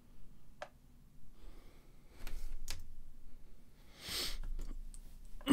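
Quiet room tone with a few light clicks and a short sniff close to the microphone about four seconds in.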